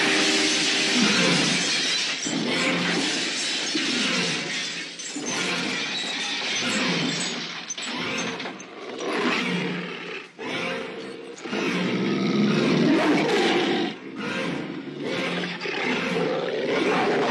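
A large dog snarling and roaring, the film's rabid St. Bernard, in repeated rasping bursts a second or two long with short breaks between them.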